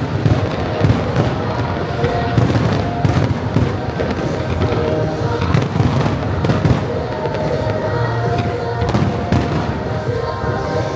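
Fireworks bursting and crackling in quick succession, a dense run of bangs, over the music played in time with the display.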